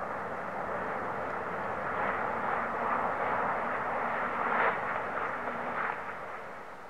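A coupled E6-series Komachi and E5-series Hayabusa Shinkansen train passing on the viaduct: a steady rush of running noise that builds to its loudest about four to five seconds in, then fades as the train clears the view.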